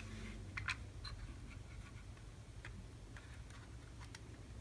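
Faint handling noise: scattered small clicks and light rubbing as a soldering station's circuit board and wires are moved about in its plastic case, over a low steady hum.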